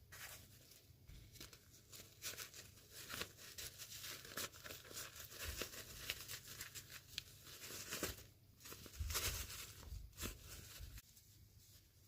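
Toy packaging being torn open and crinkled by hand: a dense run of rips, crackles and small clicks that stops about a second before the end.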